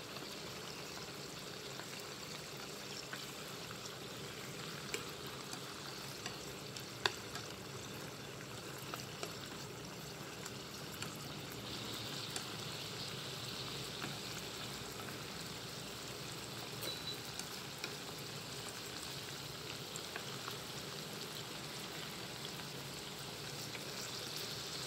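Whiteleg shrimp frying in hot cooking oil with garlic: a steady sizzle with scattered small pops and crackles.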